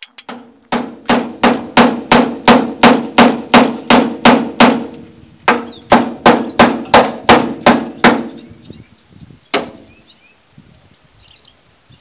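Hammer blows on a YUMZ-6 tractor's steel body panel, straightening the metal. Two quick runs of ringing strikes, about three a second, with a short pause between them, then a single blow near the end.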